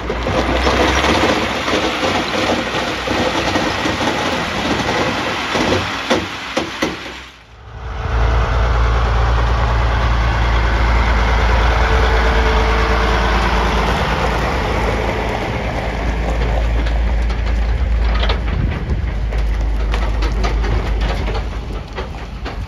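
Heavy equipment working at an excavation, a steady machinery noise with a few sharp clanks about six to seven seconds in. After a brief drop, the diesel engine of a dump truck and trailer runs close by with a steady low rumble.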